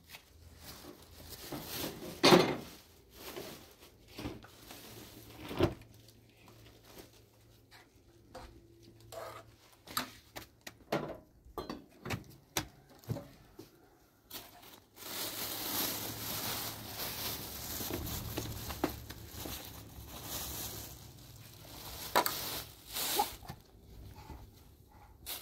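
Kitchen handling sounds: scattered clinks and knocks of a ladle, pot and dishes, with some crinkling. About halfway through, a steady background hiss begins.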